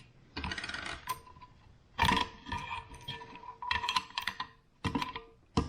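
A wrench working loose the big metal nut on an air compressor's coupler fitting: a quick run of clicks, then metal clanks about two seconds in that leave a brief ringing, and sharp clicks near the end.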